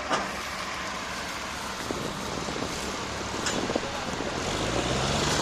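Tractor engine noise outdoors: a steady hiss of running machinery with a sharp knock just after the start, then a low engine drone that comes in and grows louder near the end.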